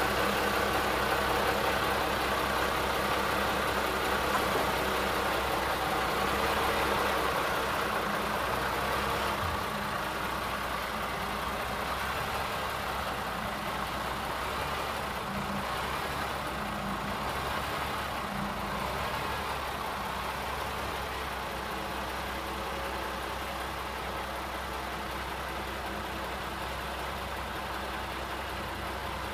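Engine of a 1987 International crane truck running steadily while the crane's outrigger is lowered. For the first nine seconds or so it is a little louder with a higher whine, then it settles to a steadier, slightly quieter run.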